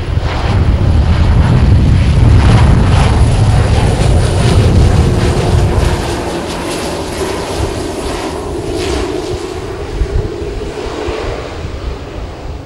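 Twin Pratt & Whitney Canada PT6A turboprop engines and propellers of a Shorts 360 landing and rolling out along the runway. A heavy rumble is loudest for the first several seconds as the aircraft passes close, then eases to a quieter steady drone as it rolls away.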